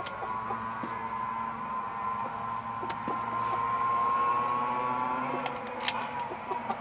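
A steady humming tone with a slight waver, with a few sharp clicks near the end as the parts of a power window motor are handled and fitted together.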